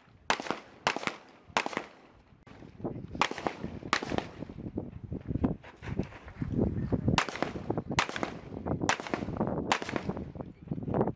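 M18 9 mm pistol firing at a range: about nine sharp shots in strings, three in quick succession, then a pair, then four spaced about a second apart.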